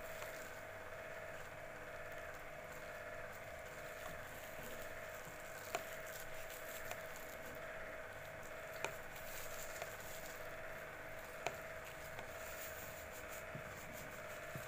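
Strips of plastic bag crinkling and rustling quietly as they are worked with a crochet hook, with three sharp clicks spread through and a faint steady hum underneath.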